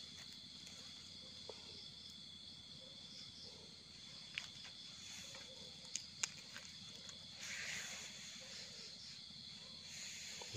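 Crickets trilling steadily at one high pitch, with a few sharp clicks and a short rustle from hands and a small knife digging in the soil.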